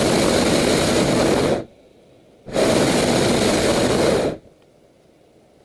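Hot air balloon's propane burner firing in two blasts. The first stops about a second and a half in; the second starts about a second later and runs about two seconds.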